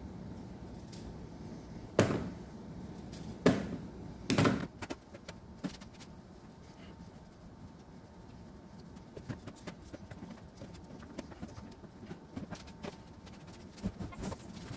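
Kitchen work: three sharp knocks about two, three and a half and four and a half seconds in, then light scattered taps and clicks.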